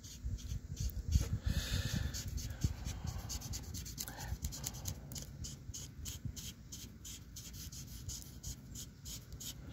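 Paint marker tip rubbed along a truck's vent window post in short scratchy strokes, about three a second, over a low rumble.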